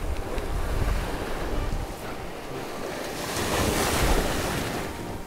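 Ocean surf washing in over a sandy beach and shoreline rocks, with wind buffeting the microphone. A wave surges up about three to four seconds in and is the loudest moment, then eases off.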